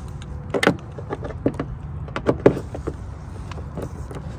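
A steady low mechanical hum, with a series of sharp clicks and taps as the screws of the door trim are worked on.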